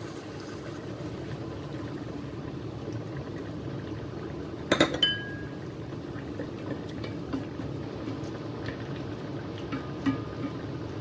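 Spiced broth in a cooking pot bubbling steadily at the boil. A sharp, ringing clink comes about five seconds in, and a few lighter clinks follow near the end.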